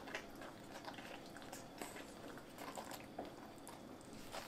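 Faint, irregular wet squishing and soft clicks of a wooden spoon stirring thick, simmering mole paste in a clay cazuela.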